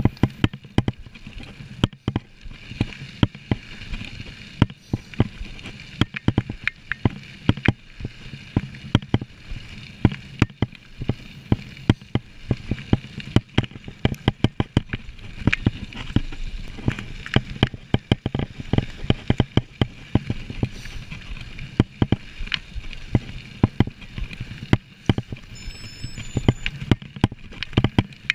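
Mountain bike ridden over a rough trail: many irregular knocks and rattles from the bike, several a second, over a steady rolling noise.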